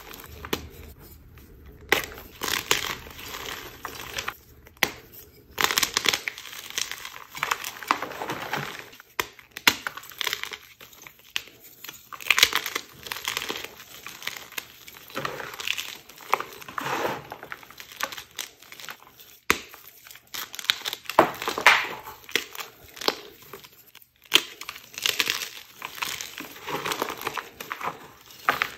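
Homemade gym chalk being crushed and crumbled in the hands, a crunchy medium texture. The crunches come in irregular clusters with short pauses between squeezes.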